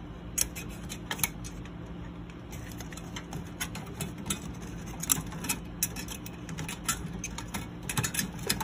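Scattered light clicks and taps of a tower CPU cooler's plastic fan frame and metal wire retention clip being pried loose with a small flat-head screwdriver, over a faint steady hum.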